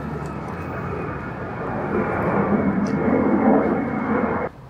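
Steady, loud engine-like rushing noise that cuts off abruptly near the end.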